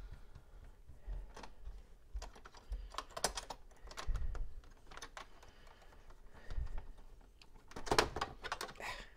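Irregular small clicks and taps as a screwdriver and fingers work a metal bracket loose from the plastic chassis of an opened HP Compaq 6000 Pro all-in-one computer, with a cluster of louder knocks near the end.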